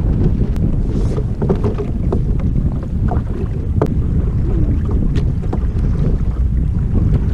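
Wind buffeting the camera's microphone in a steady low rumble as a sailing kayak moves through choppy water, with scattered short slaps and splashes of small waves against the hull.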